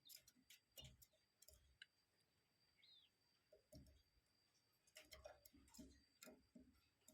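Near silence: faint scattered clicks and ticks, with one short bird chirp about three seconds in.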